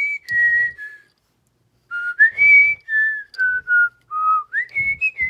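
A person whistling a tune: a run of clear single notes that step up and down and slide between pitches, with a pause of about a second near the middle.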